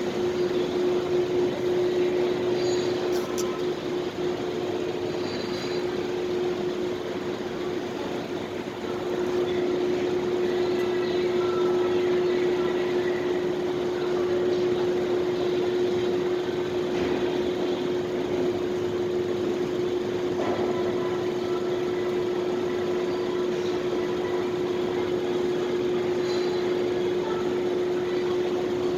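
Car park ambience: a steady mechanical hum with a single constant tone over an even wash of noise, with faint vehicle sounds in the background and a slight swell about nine seconds in.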